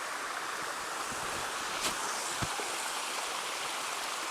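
Small stream of water cascading over rocks into a pool, a steady rushing splash.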